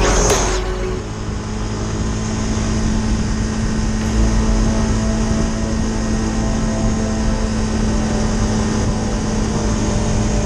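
Motorcycle cruising at a steady speed on a highway: a steady engine hum under loud wind and road noise on the handlebar camera's microphone. Background music fades out within the first second.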